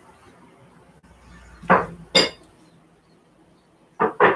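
Sharp metallic clanks in two pairs, the first pair near the middle with a brief ring on the second clank, the second pair near the end.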